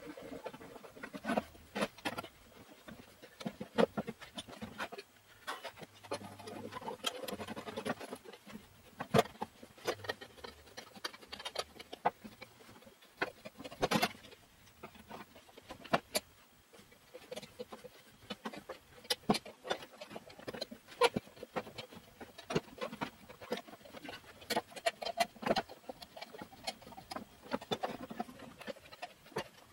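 Irregular clicks and knocks of steel leaf-spring leaves and C-clamps being handled as a truck's front leaf-spring pack is stacked and clamped together.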